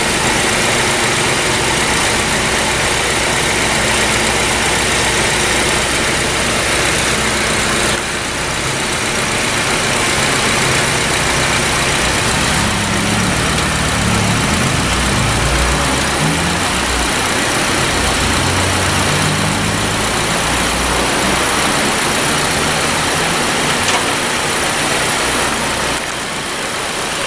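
Honda Civic engine running with a steady hiss over it. Its low note shifts and grows stronger for several seconds in the middle.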